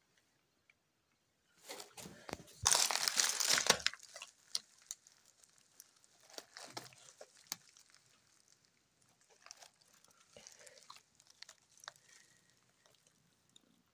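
Dry straw rustling and crackling as a hand moves through a straw nest. A loud burst of rustling starts about two seconds in and lasts about two seconds, followed by scattered softer crackles.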